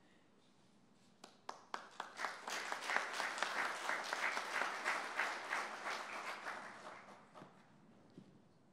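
A small audience applauding. A few scattered claps about a second in build into steady clapping, which thins out and dies away near the end.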